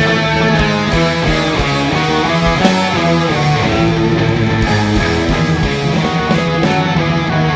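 Live band playing an instrumental passage: guitar leading over bass and steady drum beats.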